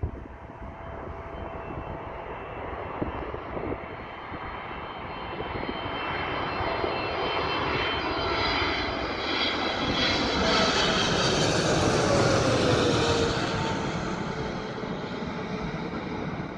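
Boeing 777 freighter's twin GE90 turbofans on landing approach, a jet whine and rush swelling as the airliner comes in low and passes overhead. The whine drops in pitch as it goes by, then the sound eases off as it flies away toward the runway.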